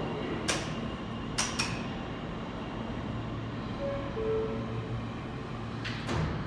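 R160 subway car standing in the station with doors open, its equipment humming steadily, with a few sharp clicks. About four seconds in, the two-note door chime sounds, high then lower, and near the end the doors close with a thud.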